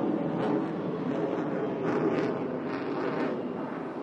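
Fighter jets flying overhead: a loud, rough jet roar with crackling, beginning to fade near the end.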